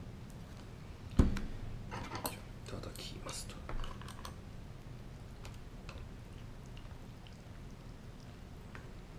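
Plastic ramen bowl set down on a table with a sharp knock about a second in, followed by a few seconds of clicking and clattering as chopsticks are picked up and knock against the bowl while stirring noodles; after that only faint soft ticks of mixing.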